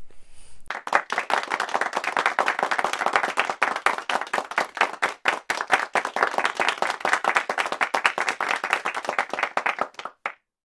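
Applause: many hands clapping, starting about a second in and cutting off abruptly just before the end.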